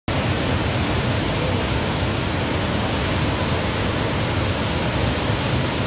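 Waterfall: a steady, even rush of falling water with a deep low rumble.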